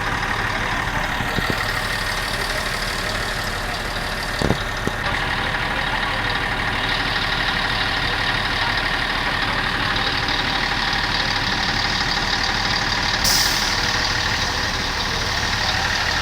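Heavy diesel truck engine idling steadily, with a single sharp knock about four and a half seconds in and a short hiss near the end.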